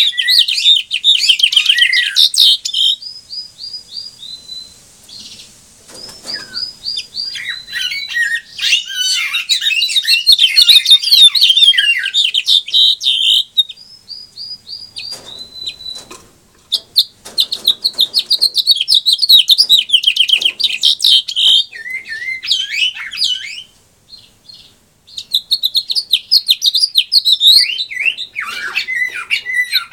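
Male house finch singing: long, fast, warbling phrases full of quick trills, given in about four bouts with short pauses between them.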